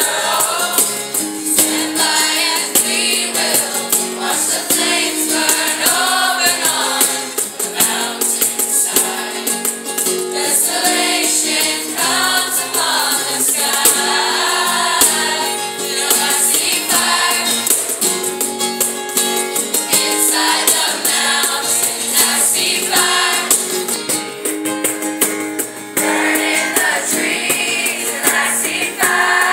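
Eighth-grade school chorus singing together in a reverberant gym, held notes and phrases of mixed young voices, with a high rattling percussion-like sound running under the singing.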